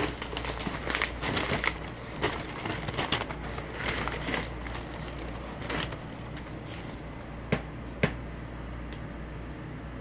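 Newsprint pages being turned and handled, rustling and crinkling in irregular bursts for about six seconds. Two sharp clicks follow near the end.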